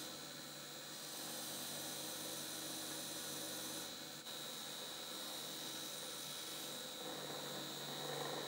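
Small bench polishing machine running steadily, its wheel buffing a knife's metal guard, with a constant high-pitched whine over a low hum.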